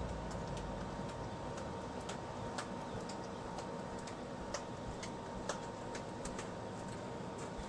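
Faint, regular clock-like ticking, about two ticks a second, over steady room noise with a faint high tone.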